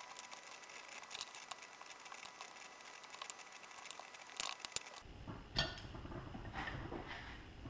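Light clicks and taps of wooden chopsticks against a glass bowl and eggplant slices as pork-and-chive filling is scooped out and pressed into the slits. About five seconds in, a low background rumble comes in suddenly, under softer handling sounds.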